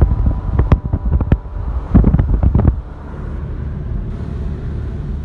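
Car driving, heard from inside the cabin: low road and engine rumble with wind buffeting the microphone. A run of sharp knocks comes in the first three seconds, then it settles to a steady rumble.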